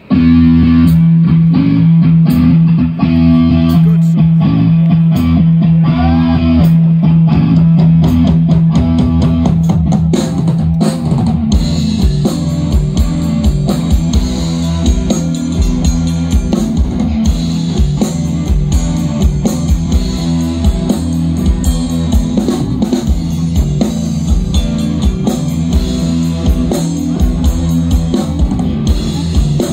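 Live rock band playing electric guitars, bass guitar and drum kit, loud. A low chord is held for the first ten seconds or so, then the drums take up a steady beat under the guitars.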